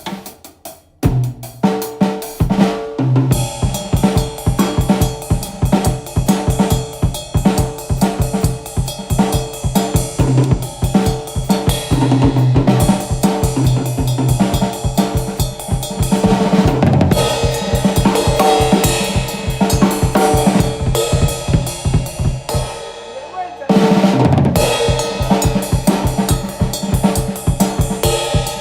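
Acoustic drum kit played through microphones in a sound check: a steady, busy beat of kick, snare and cymbals. The playing gets going about a second in, and eases off briefly a few seconds before the end before coming back in full.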